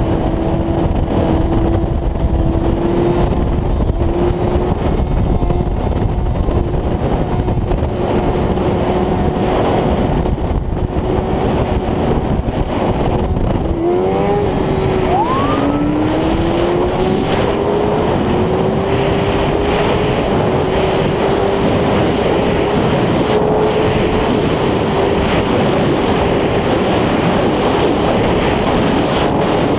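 Honda sport bike engine running at a steady cruising pitch under heavy wind roar on the microphone. About halfway through, the engine note dips and wavers, then climbs steadily as the bike accelerates and settles at a higher pitch.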